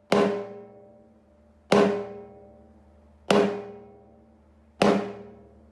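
Timbale struck four times at an even, slow pace, about a second and a half apart. Each stroke rings with a clear pitched tone that dies away before the next.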